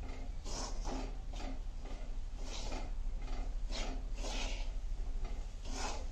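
A spatula scraping and stirring a dry mix of grated coconut and semolina as it roasts in an aluminium kadai, in uneven strokes about once or twice a second. A steady low rumble from the gas burner runs underneath.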